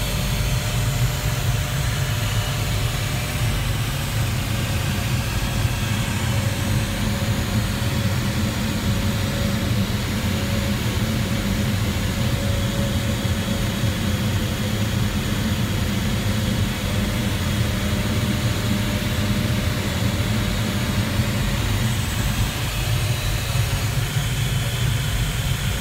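Steady rush of air around a Duo Discus glider's cockpit in flight, a low rumble with a hiss over it.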